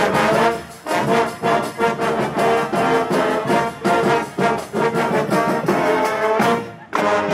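Marching band playing: brass, saxophones and clarinets in short, rhythmic chords, with a brief break a little before the end.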